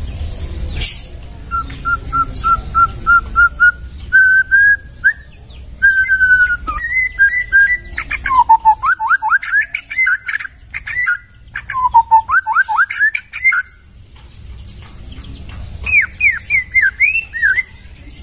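White-rumped shama (murai batu) singing: a quick run of repeated whistled notes, then held whistles and fast rising and falling sweeps mixed with high chattering notes. After a short pause near the end comes a last phrase of sweeping notes.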